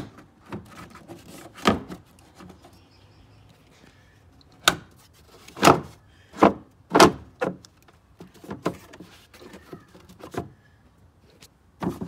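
Sharp plastic knocks and clicks as a vehicle fuse box cover is slid back on and pressed onto its latches, loudest in a burst of four or five around the middle.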